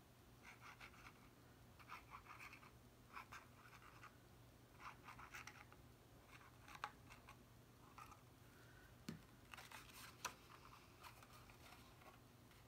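Faint scratching and rustling of cardstock being handled and pressed while glued tabs are set in place, in short irregular bursts with a few light clicks and taps.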